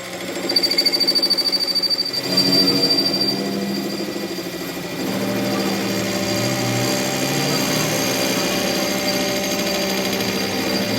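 Workshop machine running steadily, with a thin high whine in the first few seconds and a change in its running note about five seconds in.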